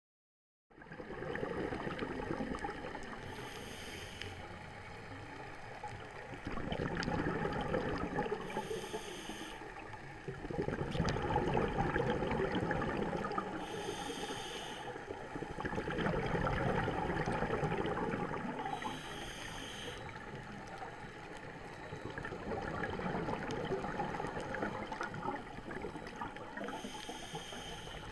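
Scuba diver breathing through a regulator underwater, starting about a second in. A short hiss of inhalation comes about every five seconds, each followed by a longer bubbling rush of exhaled air.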